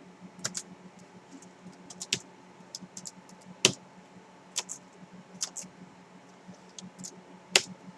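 Quiet, irregular clicks of keys being pressed on an i-Rocks 6570 scissor-switch keyboard, a few keys at a time as key combinations are tried. About six of the presses stand out louder than the rest.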